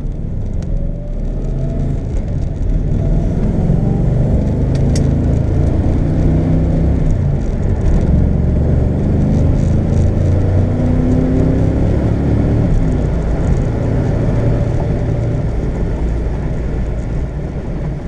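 Car engine pulling under acceleration, its pitch climbing over the first few seconds, then running steadily at speed with road noise.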